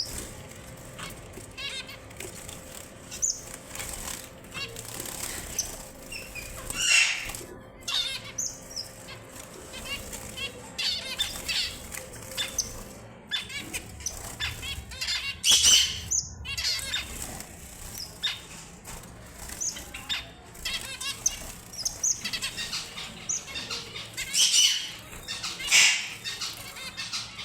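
Red avadavats (strawberry finches) giving frequent short, high chirps, with a few louder bursts of fluttering wingbeats.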